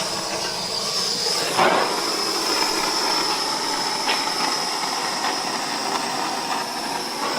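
Propane torch flame hissing steadily while heating a seized EGR fitting so it can be broken free. A brief knock comes about a second and a half in.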